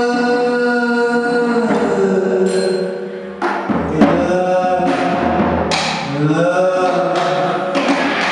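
Live experimental noise music: a man sings long, chant-like held notes into a microphone, his pitch bending and gliding in the second half, over a droning, noisy electronic wash. Sharp percussive hits come about three and a half and four seconds in.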